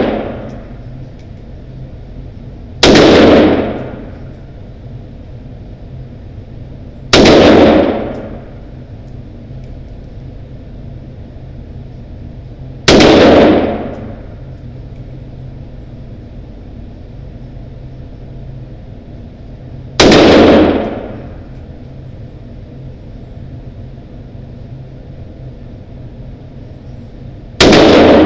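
Century Arms WASR-10 AK-pattern rifle firing single 7.62×39mm shots: five loud shots several seconds apart, each ringing out with the echo of an indoor concrete-block range. A steady low hum fills the gaps between shots.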